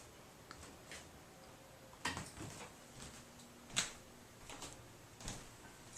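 Faint, scattered clicks and knocks with quiet room noise between them: about four in all, the clearest about two seconds in and just before four seconds.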